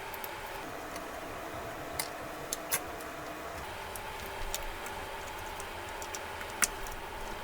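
A few light, sharp clicks and taps of small tools and parts being handled during a tablet repair, the loudest about two-thirds of the way in, over a steady hum.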